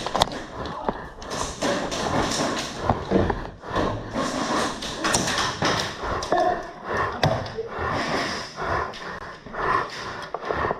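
Airsoft game action: many irregular sharp knocks, taps and thuds.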